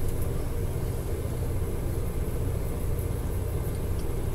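Steady low background rumble and hum with no distinct events.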